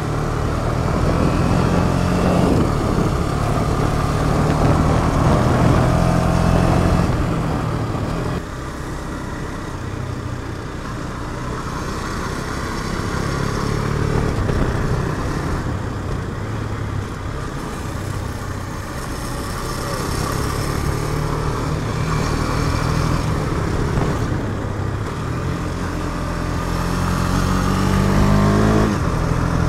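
KTM Duke 250's single-cylinder four-stroke engine running under way, the revs climbing and falling with the throttle. The engine note drops suddenly about eight seconds in, and again just before the end after a rising run.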